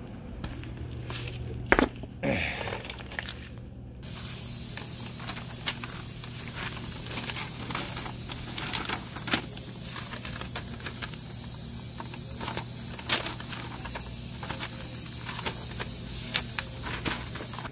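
A steady hiss that starts suddenly about four seconds in, with frequent small clicks and crackles over it from a paper instruction booklet being handled.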